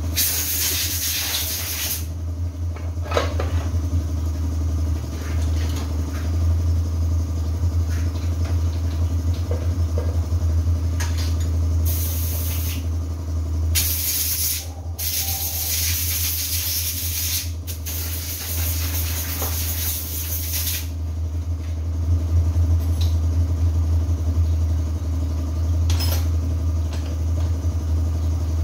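Stihl 070 two-stroke chainsaw engine idling steadily, with several loud bursts of hissing over it, the longest lasting about seven seconds.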